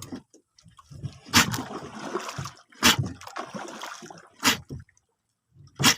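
Water splashing in four sharp bursts about a second and a half apart, with sloshing and trickling between them, at the side of a small fishing boat.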